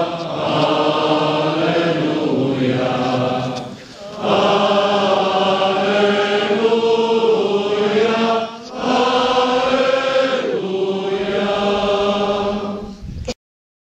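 A group of voices singing a chant together in long held notes, with two short breaks between phrases; the singing cuts off abruptly near the end.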